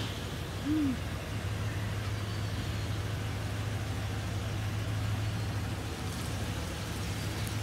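Toyota Tundra pickup's V8 engine running at low speed as the truck moves slowly out of a garage, a steady low hum. About a second in there is one short tone that rises and falls.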